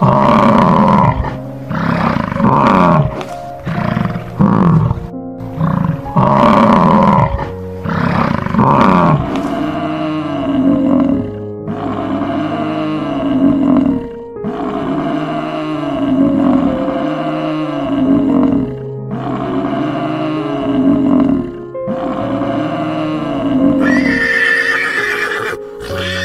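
Background music with animal calls over it: bison bellowing for the first ten seconds or so, then shorter low calls repeated about every one and a half seconds, and a horse whinnying about two seconds before the end.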